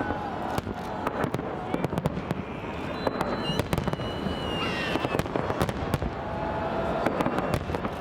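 Fireworks salute going off in a dense, irregular string of sharp bangs and crackles, with voices of people in the crowd.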